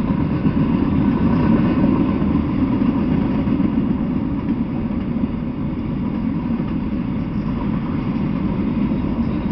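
Freight train of autorack cars rolling past, a steady rumble of steel wheels on the rails.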